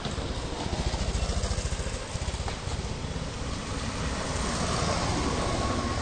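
Motorcycle engine running with a fast, even pulsing rumble, loudest about a second in; a thin steady whine joins in near the end.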